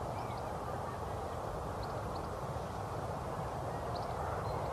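Steady outdoor background hiss and low rumble on a phone microphone, with a few faint, brief bird chirps.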